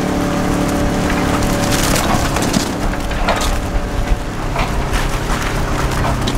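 An engine running steadily, with rattling and crackling over it.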